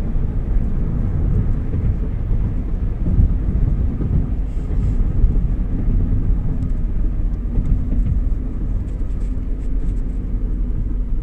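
Steady low rumble of a car driving along a highway, heard from inside the cabin: engine and tyre noise.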